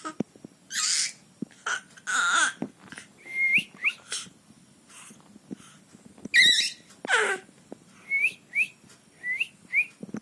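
A person whistling short rising chirps, mostly in pairs, between louder breathy bursts.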